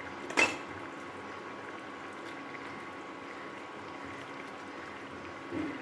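Curry broth bubbling steadily in a pan as it boils, with one brief sharp click about half a second in.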